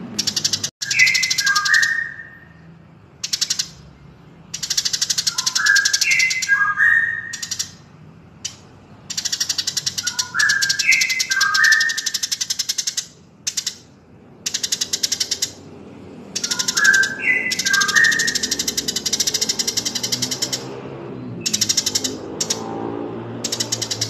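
Birdsong mastering recording mixing Eurasian tree sparrow and white-rumped shama: long stretches of rapid, high chattering trills, broken four times by short phrases of clear whistles that step downward.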